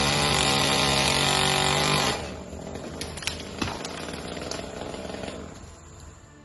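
Two-stroke chainsaw held at high throttle, then let off about two seconds in. After that it drops to a quieter, uneven running sound with a few sharp clicks, and fades out near the end.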